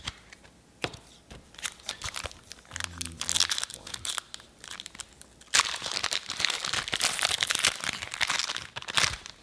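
Foil Pokémon booster pack wrapper crinkling and tearing as it is opened by hand. A dense run of crackles grows much louder suddenly about five and a half seconds in and stops just before the end.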